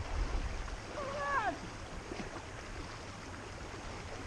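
Steady rush of river water, with low wind rumble on the microphone at the start and one short, arching, voice-like cry about a second in.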